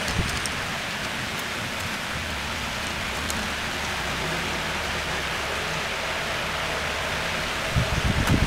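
A steady hiss of background noise, with a few light knocks near the end as a small oil-quenched steel part is set down in a metal tray with pliers.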